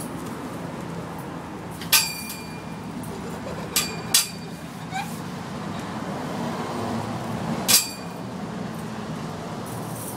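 Four sharp metallic clinks, each with a brief ring: one about two seconds in, two close together near four seconds, and one near eight seconds, over a steady low background hum.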